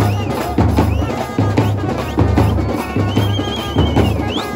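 Music with a heavy, regular drum beat and busy percussion.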